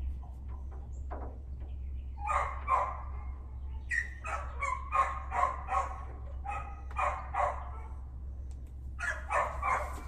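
A dog barking in four quick runs of several barks each, over a steady low hum.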